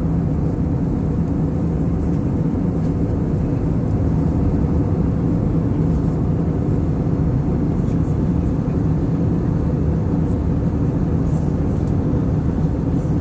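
Steady drone of an airliner cabin in flight: engine and air noise, even and unchanging, with a low hum.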